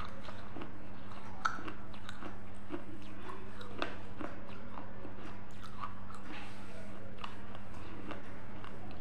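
A person chewing a mouthful of food close to a clip-on microphone: soft, irregular crunches and mouth clicks, with a steady low hum underneath.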